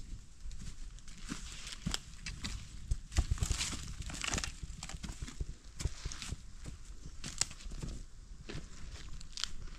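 Footsteps crunching and rustling through dry bamboo leaf litter on a slope, with leaves and twigs crackling underfoot in an uneven run of steps. The loudest crunching comes about three to four seconds in.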